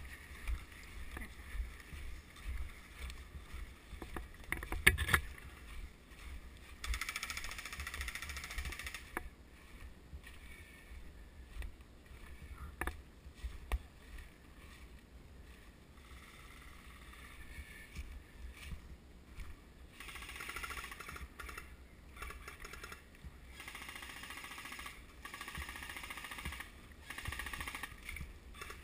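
Footsteps crunching and rustling through dry leaf litter as a player walks and runs, over a low rumble of wind and movement on the body-worn camera's microphone, with a few sharp clicks.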